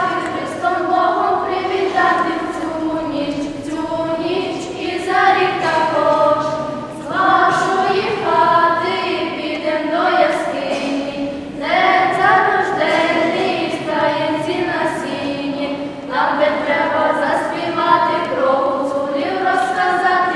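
A small group of girls singing a Ukrainian Christmas carol (koliadka) together, unaccompanied, in sustained phrases.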